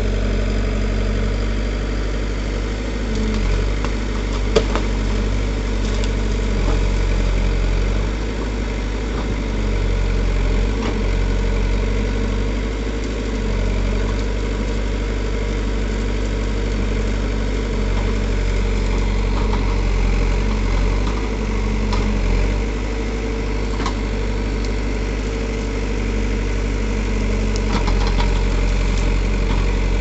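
Caterpillar 424B backhoe loader's diesel engine running steadily while the backhoe digs through brush, with a few short sharp cracks; the loudest comes about four and a half seconds in.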